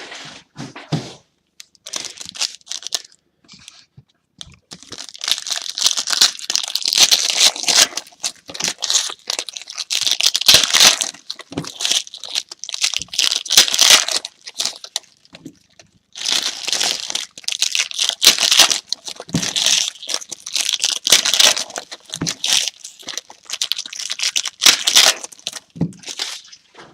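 Trading-card pack wrappers being torn open and crinkled, in two long stretches of rustling with a short pause between.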